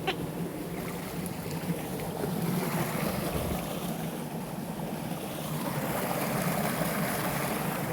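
Steady rushing of waterfall water, swelling a little around the middle and again near the end, with a short sharp sound just at the start.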